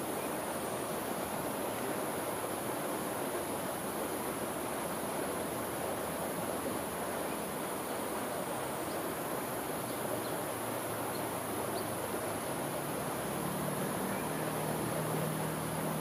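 Steady rushing of a mountain stream, with a continuous high insect drone above it. Near the end a low hum of traffic on the freeway viaduct rises faintly under the water.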